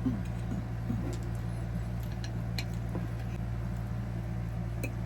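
Cutlery clinking a few times against plates and dishes while eating, over a steady low hum.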